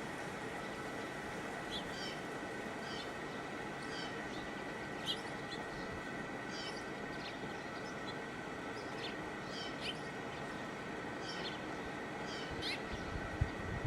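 Wild birds chirping outdoors: short, high calls every second or so at an uneven pace, over a steady hiss with a faint steady high tone.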